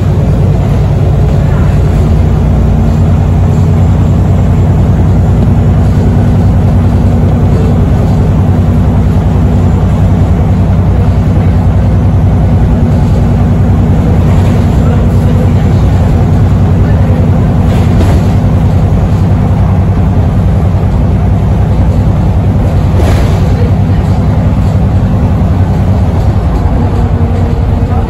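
Interior sound of a VDL SB200 Wrightbus Pulsar 2 single-deck bus on the move: a loud, steady low engine drone with road noise and a few faint rattles. A thin steady whine joins in near the end.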